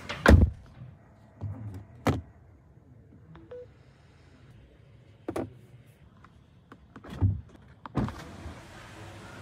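Hands handling a 2024 Xpeng X9's cabin trim and controls: a loud heavy thud just after the start, then about five more separate knocks and clicks spread over the following seconds, the last from the door's window switches.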